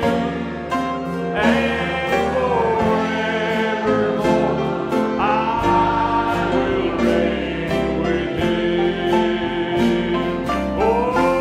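A man sings a slow gospel worship hymn with sustained instrumental accompaniment and a light, regular beat.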